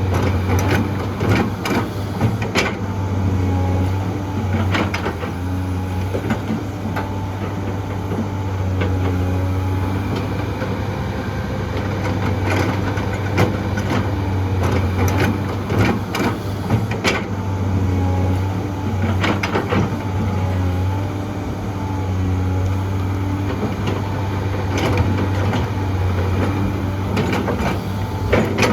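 Heavy diesel engine of an excavator and dump truck at work, running steadily with its pitch wavering up and down, with scattered sharp knocks and clanks.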